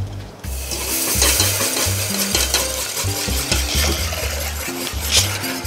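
Milk being poured into a hot butter-and-flour roux in a stainless steel saucepan, sizzling as a metal whisk stirs it, from about half a second in. Soft background music runs underneath.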